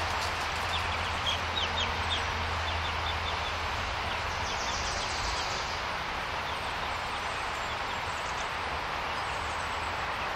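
Young chickens peeping, a run of short high chirps in the first couple of seconds and a few more later, over a steady background hiss.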